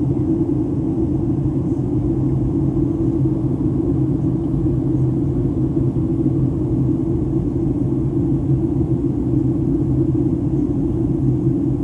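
Steady cabin noise inside a Boeing 757 airliner in flight: a constant low rumble of engines and airflow, with a steady low hum running through it.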